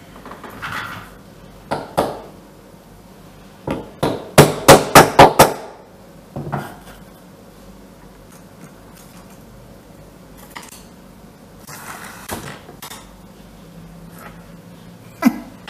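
Hand work on small parts at a desk: a few single knocks, then, about four seconds in, a quick run of about six loud sharp taps lasting about a second, followed by quieter scattered handling and scraping sounds.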